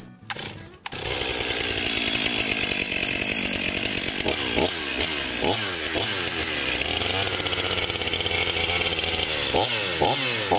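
Stihl MS 500i fuel-injected two-stroke chainsaw pull-started by its recoil starter, catching about a second in and then running, with its engine revved up and back down several times.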